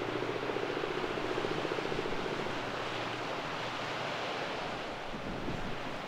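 Strong wind buffeting the microphone over waves breaking on the shore, steady throughout. A faint low hum underneath fades out about two seconds in.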